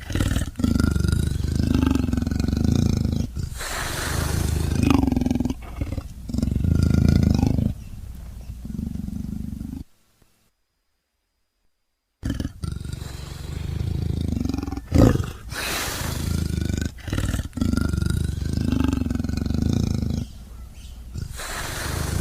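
Leopard roaring and growling in a string of long calls, breaking off about ten seconds in for two seconds of silence before another string of calls begins.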